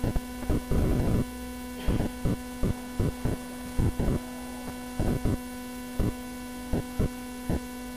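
Steady electrical mains hum in the recording, with short irregular clicks and knocks about once or twice a second.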